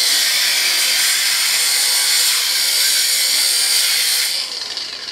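Handheld power tool cutting through heavy-duty galvanized steel mesh, a loud steady high-pitched hiss. It fades away in the last second as the cut ends and the tool winds down.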